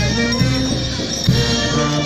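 Brass band playing a Negritos dance tune, with sustained wind notes over a steady, repeating bass line.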